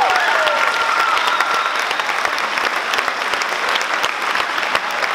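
Audience applauding, with a voice cheering over the clapping for the first second or two before it settles into steady applause.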